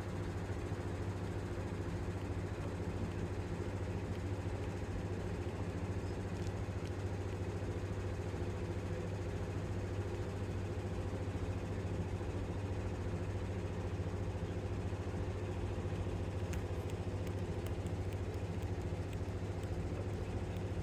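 Domestic cat purring steadily and continuously, with a close, even low rumble. A few faint light ticks come near the end.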